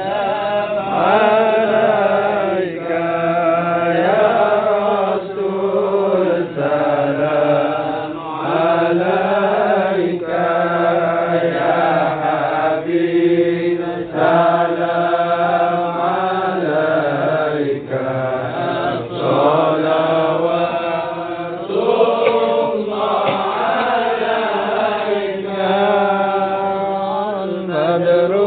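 A group of men chanting salawat, Islamic devotional verses in praise of the Prophet, together in one melody. The chant runs in long, rising and falling phrases with brief breaths between them.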